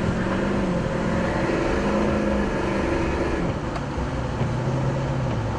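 Vehicle engine running as the chase vehicle moves a short way, its pitch rising and falling, over a steady rushing noise.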